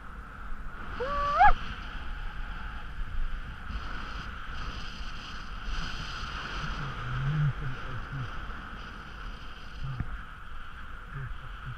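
Skis sliding and scraping over snow in a steady hiss. About a second in, a short, loud cry rises in pitch.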